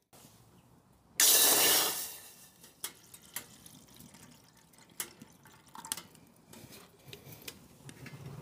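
Water poured from a bottle into an aluminium camping kettle: a loud gush about a second in that quickly thins away, followed by a few light metallic clicks and clinks.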